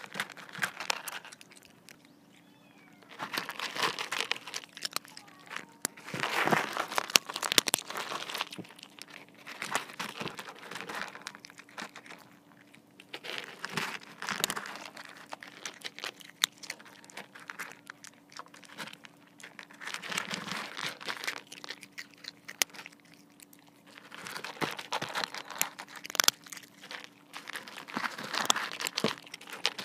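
Cats chewing dry kibble close to the microphone, crisp crunching in bursts of dense clicks with short pauses between mouthfuls, and pellets clicking against the PVC foam-board bowl.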